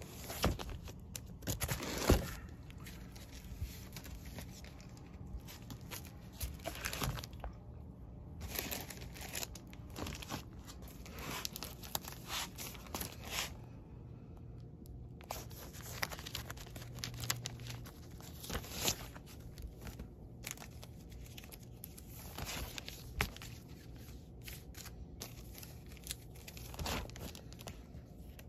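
Vinyl LP jackets in plastic sleeves being flipped through in a record bin: irregular crinkling and rustling of the plastic, with short knocks and scrapes as the records knock together, the loudest about two seconds in.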